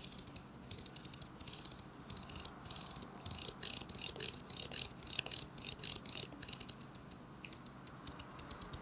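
The rotating bezel of a Galaxy Watch6 Classic being turned by a finger, giving runs of quick, crisp detent clicks, one click per step. The clicks come fastest in the middle and more sparsely near the end.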